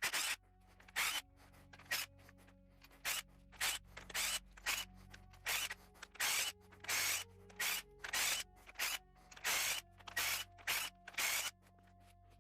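Repeated short hissing bursts, about twenty, uneven in spacing, over a quiet ambient music drone.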